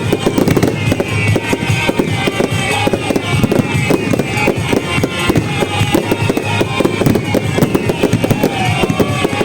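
Fireworks display: many shells bursting in quick succession, a dense, continuous run of bangs and crackles.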